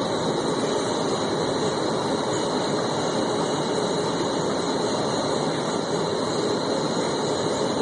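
Streetcar running, heard from inside the car: a steady, even rumble and rush of the moving tram.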